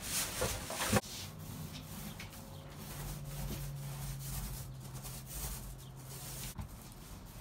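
Small paint roller rolling white paint onto a camper's wall panels and door frame: repeated soft rubbing strokes, loudest in the first second.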